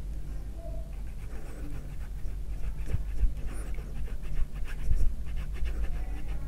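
A block of ready-made carp bait (Bondon and Pak Ikin) being grated on a small flat metal hand grater: a quick, rhythmic run of rasping scrapes, starting about a second in.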